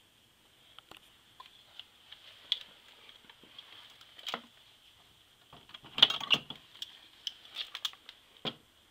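Scattered light clicks and knocks from people moving and handling things in a small room, busiest about six seconds in, over a faint steady high whine.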